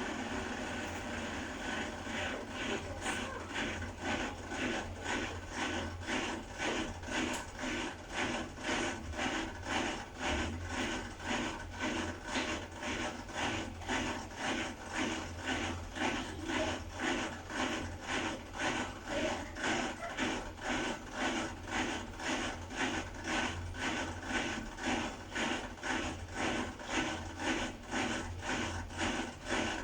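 Beko WDX8543130W washer-dryer running with a rhythmic rubbing, scraping noise that repeats about twice a second over a steady low hum.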